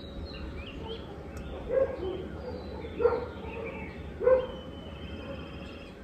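A dog barking three times, a little over a second apart, with birds chirping in the background.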